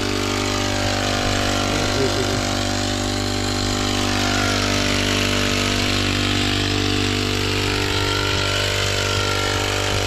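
Small engine of a motorized crop-sprayer pump running at a steady, unchanging speed while the tomatoes are sprayed.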